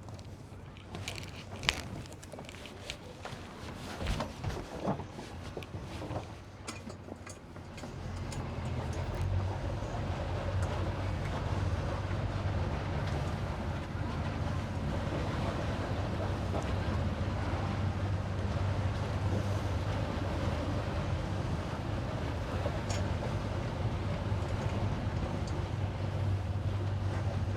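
A few scattered knocks and clatter, then about eight seconds in a boat engine comes up in revs and runs on as a steady low drone.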